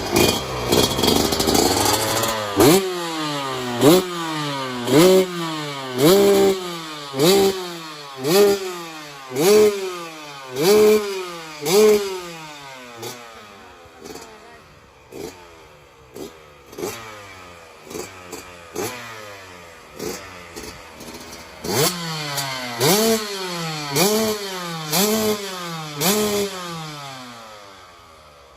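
Yamaha YZ125X two-stroke 125 cc single-cylinder engine being blipped with the throttle, about one sharp rev a second, each snapping up in pitch and falling back to idle. The revs grow softer in the middle and stronger again near the end.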